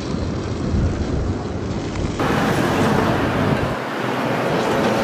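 Wind buffeting the microphone outdoors: a loud, fluctuating rumble and rush. About two seconds in, the sound changes abruptly to a brighter, hissier rush.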